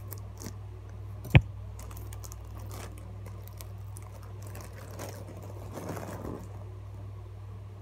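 Foil balloon crinkling and clicking as it is handled, with one sharp click about a second and a half in as scissors cut a small hole in it. A steady low hum runs underneath.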